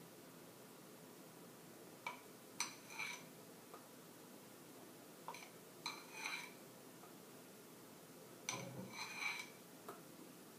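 A metal spoon clinking lightly against a ceramic bowl and a small drinking glass as a chocolate mixture is spooned into the glass, in four short clusters of taps with a brief ring, about 2, 3, 6 and 9 seconds in.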